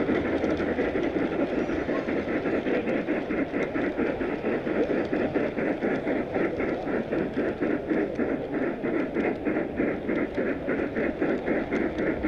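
Large-scale model train rolling along its track, heard from a car of the train itself: a steady rumble of wheels and drive with a rapid, even ticking of about four to five clicks a second.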